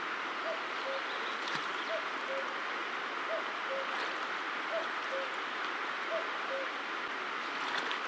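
Common cuckoo calling its falling two-note 'cuck-oo' over and over, about one call every second and a half, some six times, over a steady rushing hiss.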